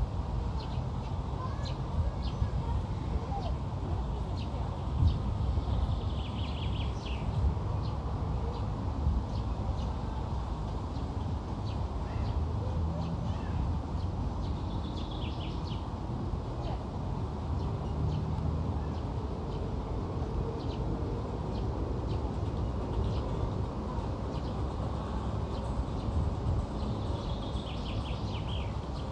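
Outdoor ambience: a steady low rumble with a bird calling in short, quick runs of notes three times, about seven, fifteen and twenty-seven seconds in, and faint scattered chirps.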